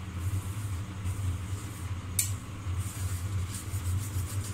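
Flat steel spatula pressing a chapathi on a cast-iron tawa, with one sharp metallic clink about two seconds in and light tapping and scraping near the end, over a steady low hum.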